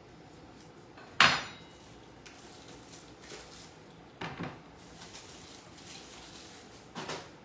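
Kitchen knocks and clatter from cucumbers being cut for pickles: a loud sharp knock with a short ring about a second in, two lighter knocks later, and faint cutting and scraping between.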